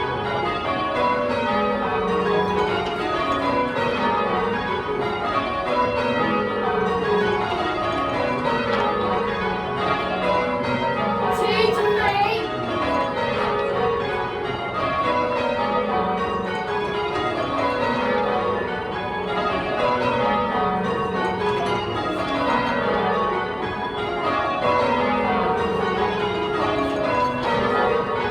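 Change ringing on a ring of ten Taylor-cast church bells, heard from the ringing chamber: the bells strike one after another in repeated descending runs from treble to tenor, the back bells harder to hear.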